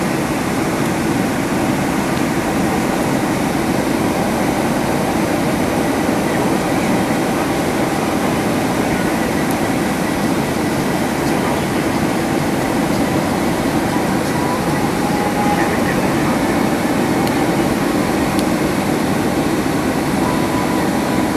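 Boeing 767-300ER cabin noise during the climb after take-off: a steady roar of the engines and the air rushing past the fuselage, heard inside the cabin beside the wing.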